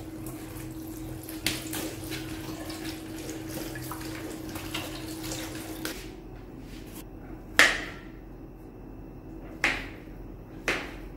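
Kitchen tap running water over button mushrooms in a plastic colander, with a steady hum; the water stops about six seconds in. Three sharp knocks follow as the mushrooms are sliced with a knife on a plastic cutting board.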